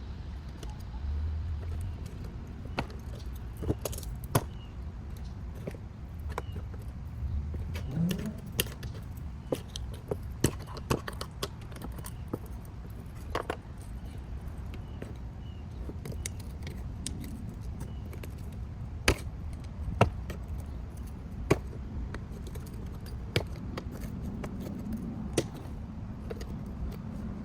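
Irregular sharp metallic clicks and taps with light scraping: a screwdriver working at the ends of shifter cables to pry off their plastic bushings.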